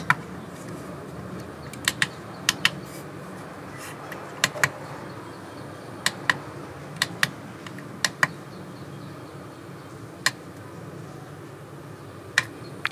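Push buttons on an iMAX B6 LiPo balance charger clicked about nine times, most presses heard as a quick press-and-release pair of clicks, while the charger is set up for a 3-cell LiPo charge.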